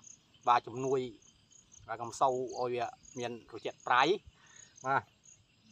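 Crickets chirping in a steady high-pitched pulse, about three chirps a second.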